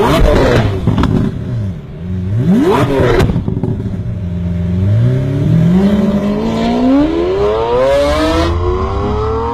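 Straight-piped 2012 Kia Rio's four-cylinder engine blipped twice to a quick sharp rev, each falling back with crackling pops from the exhaust. After that the revs climb steadily for about five seconds.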